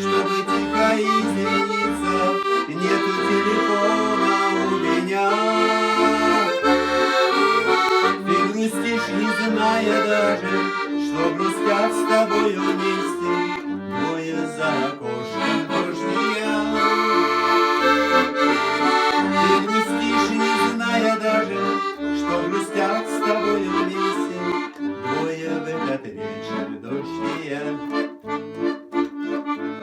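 Accordion playing an instrumental passage of the song's melody over bass notes on a steady beat, a little quieter in the last few seconds.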